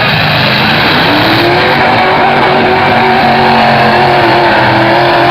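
Pickup truck engine revving hard, its pitch climbing about a second in and then held high and steady.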